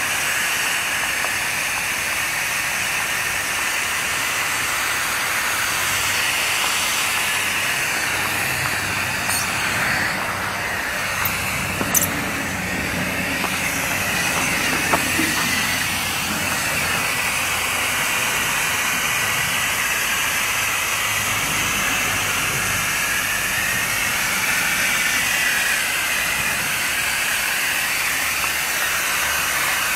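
Hose spray nozzle hissing steadily as it sprays a fine mist of water, with a few brief clicks about ten to fifteen seconds in.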